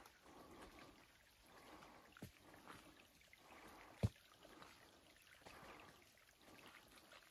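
Faint footsteps squelching and splashing along a wet, muddy trail, with one sharp knock about four seconds in and a smaller click a little before it.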